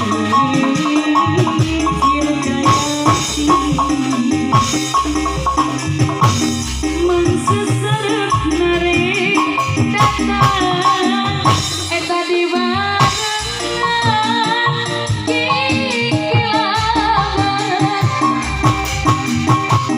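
Live band music, instrumental: a melody line over a steady rhythm of drums and hand percussion.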